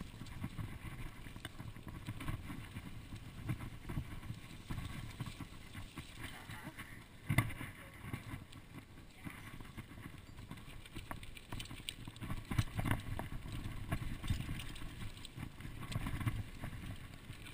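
Mountain bike rolling fast over a dirt singletrack: a low, uneven rumble of tyres and frame over the bumpy ground, with scattered rattles and knocks, the sharpest about seven seconds in.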